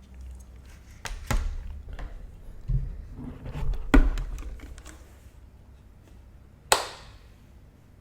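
Takeout food containers and utensils handled on a table: a handful of knocks and taps with soft handling noise between, the sharpest knock near the end.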